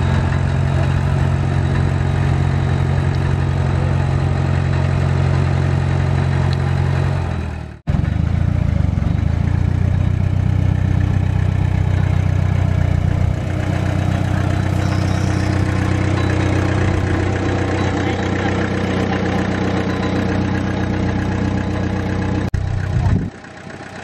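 Small crawler bulldozer's diesel engine running steadily at a low, even pitch. The sound breaks off for a moment about eight seconds in, then runs on, and drops much quieter about a second before the end.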